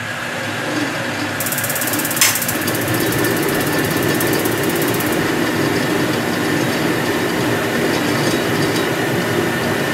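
Rinnai REU-158BR FE gas water heater starting up with its newly fitted micro switch and lighting normally. A steady rushing noise of the running heater is heard throughout. From about a second and a half in there are a few seconds of rapid, even ticking from the spark igniter, with one sharp click a little after two seconds.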